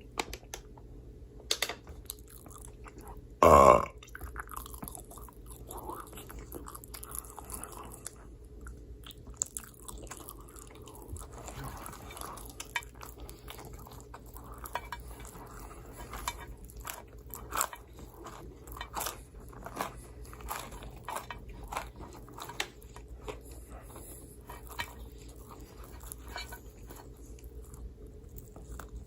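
Close-miked chewing of pizza, with wet mouth smacks and small crunches throughout. One loud, brief burp comes about three and a half seconds in.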